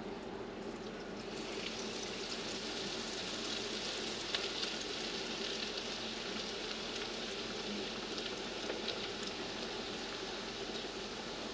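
Hot oil in an electric deep fryer sizzling as a beer-battered piece of walleye is lowered in. The sizzle swells about a second and a half in and keeps on with scattered pops.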